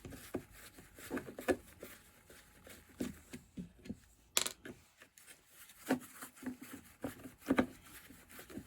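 Irregular small clicks and taps of a screwdriver and plastic and metal parts being handled while small screws are backed out of a chainsaw's housing, with one sharper click about four and a half seconds in.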